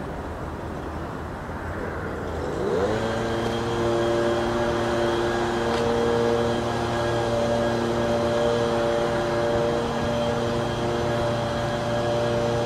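A motor or engine hum rises quickly in pitch about two and a half seconds in, then holds one steady pitch over a noisy background.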